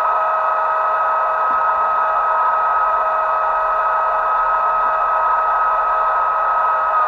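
Sound-equipped model of an E464 electric locomotive playing its stationary running sound through its speaker: a steady two-note electric whine over a hiss.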